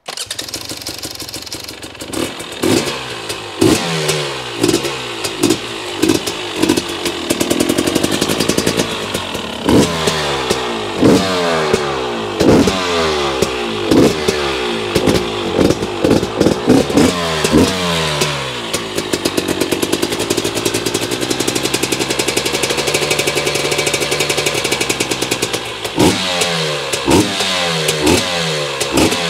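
2021 GasGas EC 250 fuel-injected two-stroke single-cylinder enduro engine running and being revved: a string of quick throttle blips, each rising sharply and falling back, then a longer held rev about two-thirds through, then more quick blips near the end.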